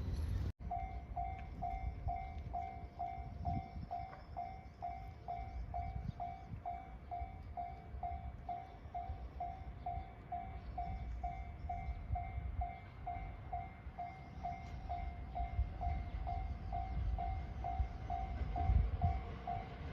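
Japanese railway level-crossing warning bell ringing in an even, repeating ding, about one and a half dings a second. A low rumble of rail traffic runs underneath and grows louder near the end.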